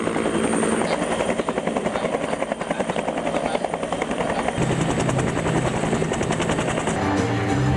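Military helicopter with a two-bladed main rotor flying low and hovering close by, its rotor blades beating in a fast, steady chop over the turbine's whine.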